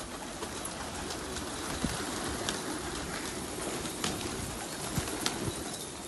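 Domestic pigeons cooing, with a few sharp clicks scattered through.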